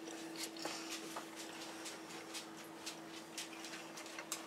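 Faint, scattered soft clicks over a steady low hum.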